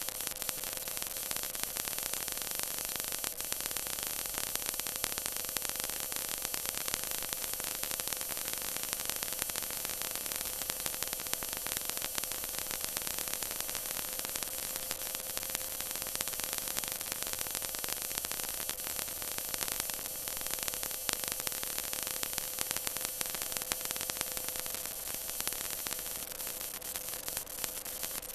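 Stock car's V8 engine held at steady full speed, heard inside the cabin through an overloaded in-car camera microphone as a harsh, hissy noise with one unchanging hum beneath it.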